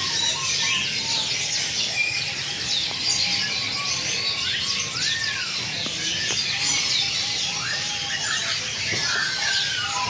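Many caged birds chirping and twittering together in a dense, continuous chorus of quick high calls, with a few lower whistled notes and glides among them.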